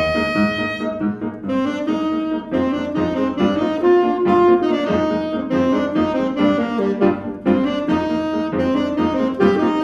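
Alto saxophone playing a jazz tune in a run of short, quickly changing notes, accompanied by grand piano.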